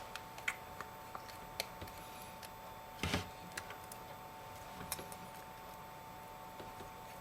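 Small, sharp clicks and taps of a precision screwdriver and tiny screws on an iPhone 5's metal frame as screws are backed out and set down, with a louder clatter about three seconds in and another near five seconds.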